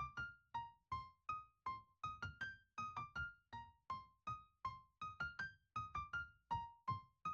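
Faint background music: a slow melody of single high keyboard-like notes, each struck and dying away, about three notes a second.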